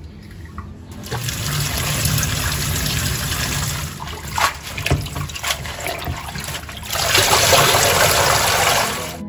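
Water sloshing and splashing as hands swish fresh grass jelly leaves around in a plastic colander of water, with a few sharper splashes. About seven seconds in, a louder, steady gush as the water pours out of the lifted colander, cutting off just before the end.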